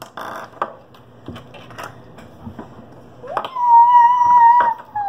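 A few light clicks and taps, then a bit over three seconds in a child sings one long, loud high note that slides down at the end.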